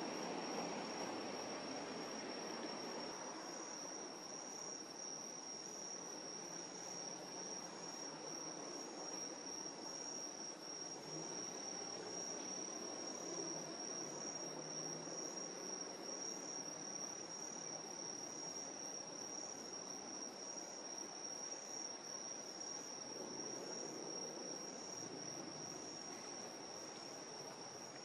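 Crickets chirring in a steady high-pitched trill, with a fainter insect call pulsing about once a second above it, over a low steady background rumble.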